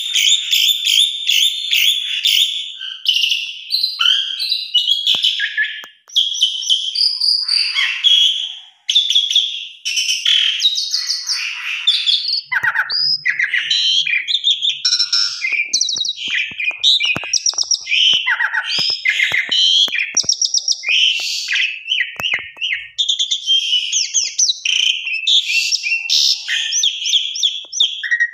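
Asian pied starling singing a long, varied song of rapid chattering, trills and whistled glides, with only two short breaks.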